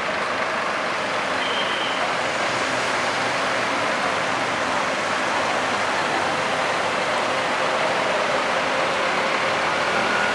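Scania K410 coach's diesel engine running as the bus drives past and pulls away, heard as a steady, even vehicle noise.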